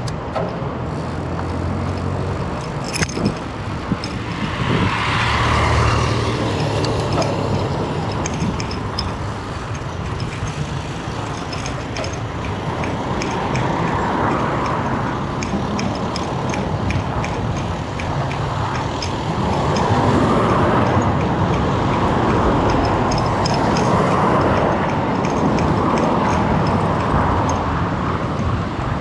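Road vehicle noise, engines and tyres on the road, swelling and easing as vehicles go by, with a sharp click about three seconds in.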